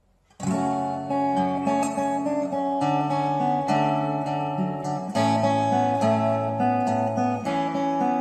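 Acoustic guitar played fingerstyle: picked melody notes over held bass notes, starting about half a second in.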